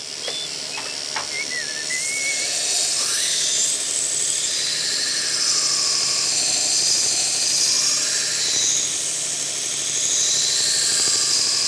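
A power grinder grinding the hardened coil-spring steel of a knife blade: a steady hiss of metal against the abrasive, with a few short squeals in the first couple of seconds. The blade's Scandi grind bevels are being ground after heat treatment.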